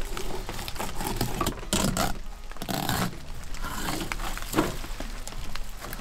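Knife slicing and scraping along a summer steelhead as it is filleted, in irregular strokes mixed with handling of the wet fish.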